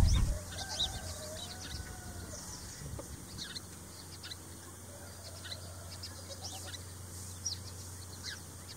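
Faint farmyard bird calls: chickens clucking and many short chirps scattered through, over a low steady hum.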